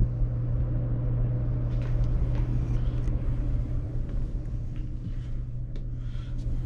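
Steady low mechanical hum from the docked cruise ship's machinery, with a low rumble beneath it. Faint rustles and clicks come in from about two seconds in.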